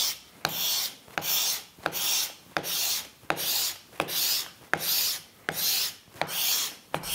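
Steel card scraper in a wooden holder pushed in quick, even strokes across a wooden board, about ten in all, each a short hissing scrape that starts with a light tick as the blade bites. The blade is cutting fine shavings rather than just rubbing.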